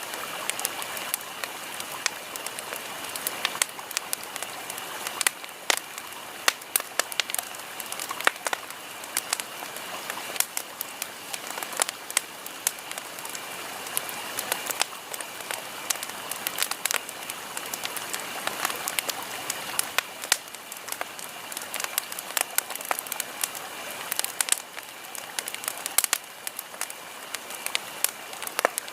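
Campfire crackling: frequent, irregular sharp snaps and pops over a steady hiss of burning wood.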